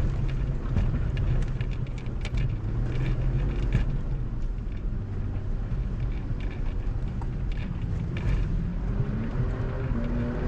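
Jeep Grand Cherokee engine running steadily at low speed over rough ground, with scattered clicks and knocks. The engine note rises slightly near the end.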